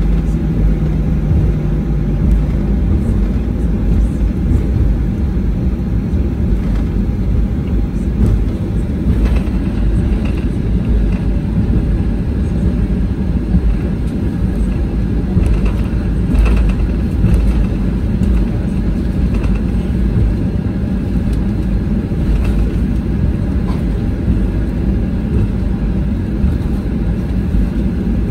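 Steady low rumble inside the cabin of a Boeing 737-800 taxiing: its CFM56-7B engines at low taxi power and the wheels rolling over the taxiway. A few faint knocks come through near the middle.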